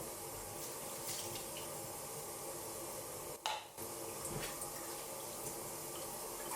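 Kitchen tap running steadily into a sink, with a few faint clinks. The flow breaks off briefly about halfway and starts again with a sharp click.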